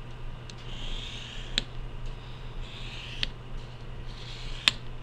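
White colour pencil scratching across paper in three long drawn strokes, with three sharp ticks between them.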